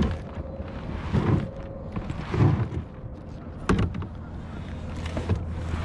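Double-bladed kayak paddle strokes swishing through the water, about one stroke a second, with wind on the microphone. A sharp knock about two-thirds of the way in.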